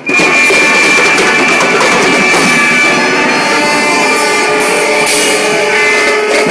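Marching band playing loudly: held wind-instrument chords over drums, coming in suddenly at the start.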